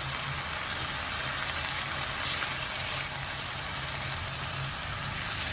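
Rice, pineapple and vegetables sizzling in a frying pan as they are stirred with a spatula, a steady hiss over a steady low hum.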